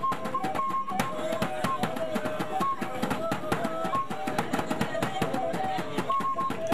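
Music with fast, dense drumming under a melody of short held notes.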